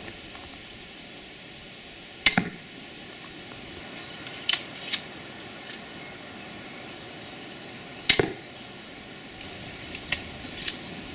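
80 lb Cobra pistol crossbow fired twice, a sharp crack with each shot, about two seconds in and again about eight seconds in. Between the shots there are lighter clicks as the folding cocking action is worked and the magazine feeds the next bolt.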